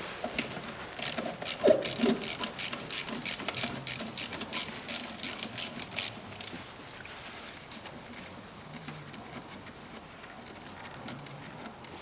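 Hand ratchet wrench clicking while a fastener is loosened. An even run of quick ratchet clicks, about three or four a second, stops about six and a half seconds in.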